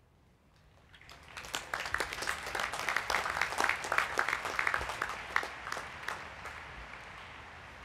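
Large crowd applauding: the clapping starts about a second in, swells to a peak midway, then fades away toward the end.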